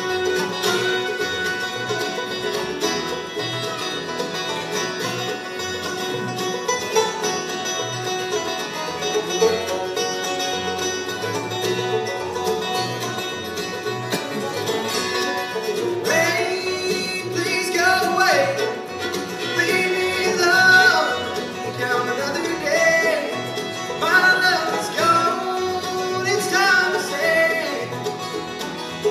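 Live acoustic bluegrass band playing: banjo, acoustic guitars, mandolin, fiddle and upright bass together, with a lead voice singing over them from about halfway through.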